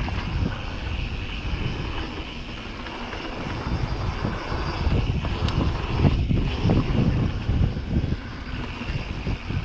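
Wind buffeting the microphone of a camera on a downhill mountain bike, mixed with the knobby tyres rolling over a dirt trail and irregular thumps as the bike rides over bumps.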